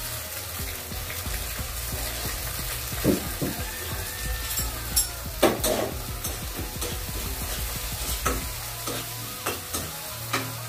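Food sizzling in a pot on a kitchen stove while it is stirred, with a spoon knocking against the pot several times.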